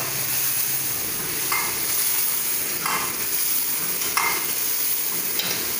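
Onion, capsicum and chilli in a sauce of soy sauce, vinegar and chilli paste sizzling steadily over the fire while being stirred, with a stirring stroke about every second and a half.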